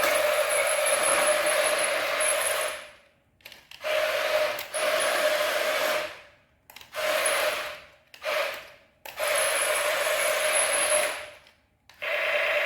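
A small electric motor whirring in short runs, switched on and off about five times with brief silences between, then starting again with a slightly different, higher whine near the end.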